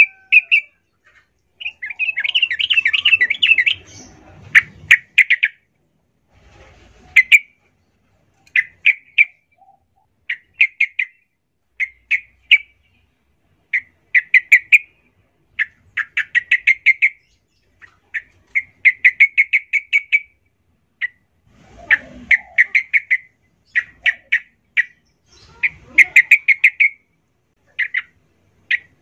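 Yellow-vented bulbul singing in short, rapid, chattering phrases repeated every second or two, with a longer, louder run a couple of seconds in.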